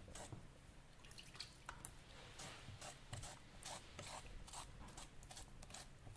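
A fork working soft porcelain clay on a board, mashing and scraping it to soften it up: faint, irregular scraping strokes, several a second.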